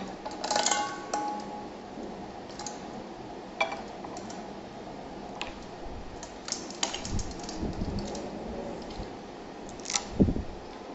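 Ice cubes set down one by one onto raw fish pieces in a ceramic bowl: scattered light clicks and clinks of ice against ice and the bowl, with a louder knock about ten seconds in.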